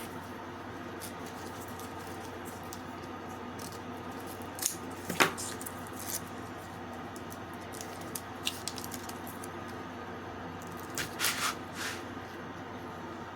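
Small handling noises of craft materials being worked by hand: scattered light taps and clicks, with two short bursts of scraping or rustling about five seconds in and again near eleven seconds. A steady background hum runs underneath.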